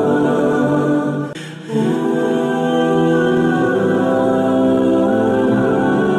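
Background music of slow, held choir-like chords; it dips and breaks off briefly about a second and a half in, then carries on.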